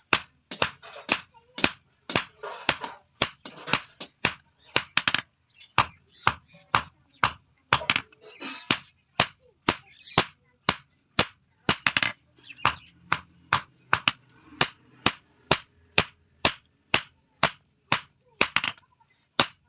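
Blacksmith's hammer striking metal on an anvil in a steady rhythm of about two blows a second, each blow leaving a short high ring.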